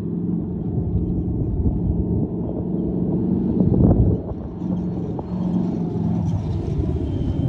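Sand car engine driving across the dunes toward the listener. Its revs rise and drop several times as the throttle comes on and off, and the sound grows louder as it approaches.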